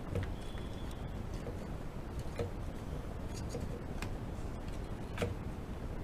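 Irregular light clicks and taps, a second or more apart and the loudest about five seconds in, over a steady low background rumble: small handling noises from work on a multimeter.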